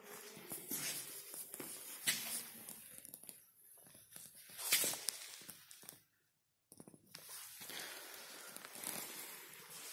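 Rustling and handling noise from a handheld camera moved around close to a parked dirt bike, with a few louder scuffs and soft footsteps; the engine is not running. The sound cuts out completely for a moment about six seconds in.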